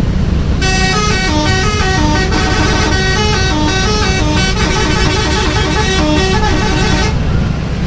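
Bus telolet horn, a multi-tone musical air horn, playing a quick tune of short notes that step up and down. The tune starts about half a second in and stops about a second before the end, over a steady low rumble.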